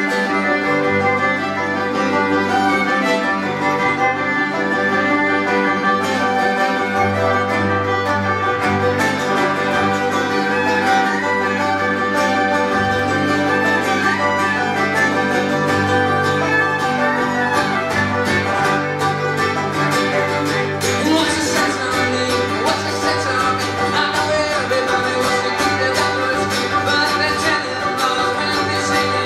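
Acoustic string band playing an instrumental passage in a bluegrass-folk style: fiddle prominent over banjo, acoustic guitar and upright bass.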